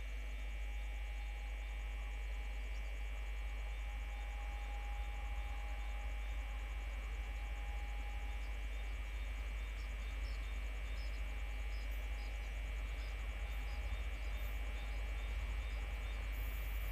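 Faint, steady outdoor background: a constant low rumble under a high, even chirring, like insects calling.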